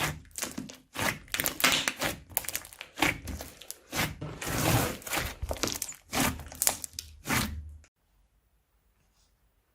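Crunchy slime being squeezed and kneaded by hand: a run of irregular crackling, crunching squishes that stops near the end.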